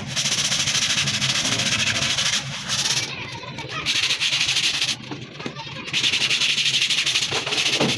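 Loud, steady hissing spray with a fine rapid pulsing, typical of a high-pressure water jet washing an air conditioner's coils. It cuts off twice for under a second, about three seconds in and about five seconds in.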